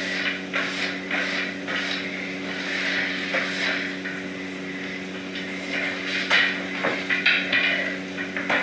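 Broom bristles sweeping a hard floor in short repeated swishes, with a few sharp knocks about six to seven seconds in, over a steady low hum.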